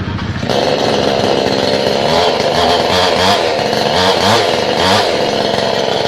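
Hoyoma two-stroke petrol chainsaw running. About half a second in it is throttled up from idle to high revs and is then revved repeatedly, its pitch swelling about once a second.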